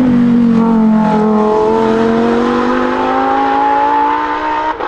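Lamborghini Huracán STO's naturally aspirated V10 accelerating hard as the car passes and pulls away. The engine note drops in pitch as it goes by, then climbs steadily, with a brief dip near the end.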